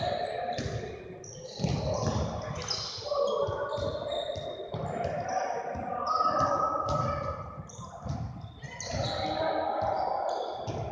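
Basketball bouncing repeatedly on a hardwood gym floor as a player dribbles, the thuds echoing in the large gym, with voices in the background.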